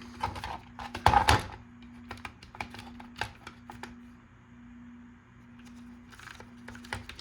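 Clicks and taps of hard plastic parts of a car's climate control panel being handled during reassembly. A louder clatter comes about a second in, then the clicks thin out, under a faint steady hum.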